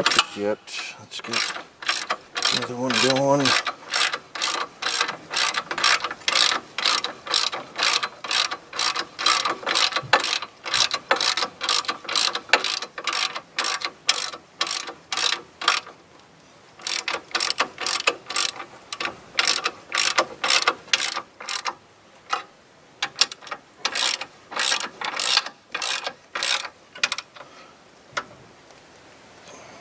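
Hand ratchet with a socket on an extension, clicking rapidly at about four clicks a second as it runs bolts in to snug. The runs of clicks break off briefly twice as the ratchet is reset.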